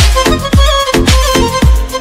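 Background dance music with a steady beat of deep bass drum hits, about two a second.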